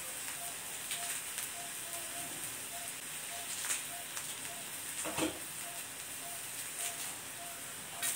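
Coconut, tomato and coriander leaves sizzling in a steel kadai on a gas flame: a steady frying hiss with scattered crackling pops. A brief louder knock comes about five seconds in.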